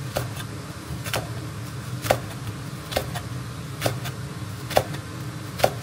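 Kitchen knife cutting red chillies into thin strips on a cutting board: seven sharp knocks, about one a second, each with a brief ring, over a steady low hum.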